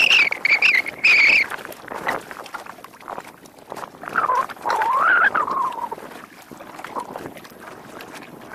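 Animal calls: a run of short, high pitched cries in the first second and a half, then a lower wavering call about four seconds in.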